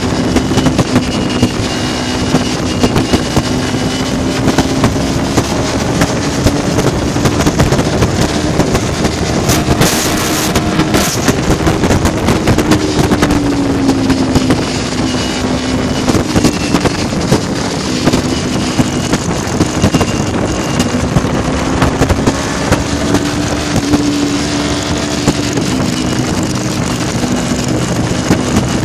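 Motorcycle engine running at cruising speed, its note rising and falling slightly with the throttle, under heavy wind noise on the microphone.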